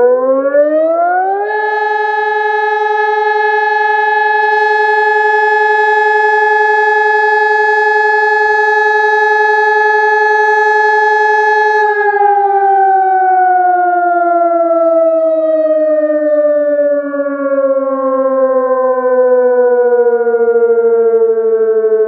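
SES 1200 fire-brigade siren sounding a test alarm. Its tone rises over about a second and a half, holds steady for about ten seconds, then slowly falls in pitch through the second half.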